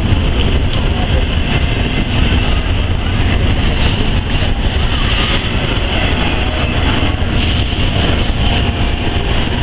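Double-stack intermodal freight train rolling past at close range: the well cars give a steady rumble of wheels on rail, with a high hiss above it that swells now and then.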